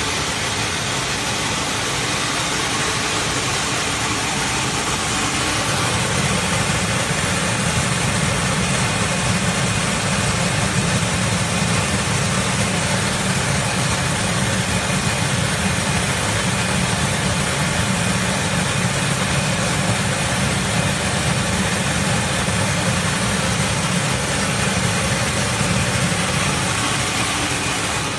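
TAIHO belt-type quartz sand colour sorter running: a steady, dense hiss of machine noise. A low hum grows louder about six seconds in and drops away near the end.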